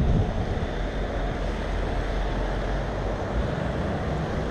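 Steady wind buffeting the microphone, a low rumbling noise with no distinct events.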